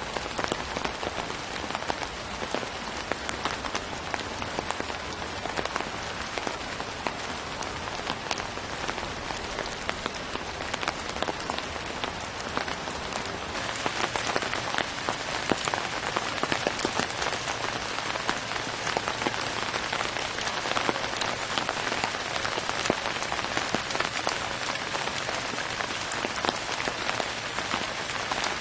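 Floodwater rushing and splashing over rocks and debris in a swollen woodland stream, a steady crackling hiss that gets louder about halfway through.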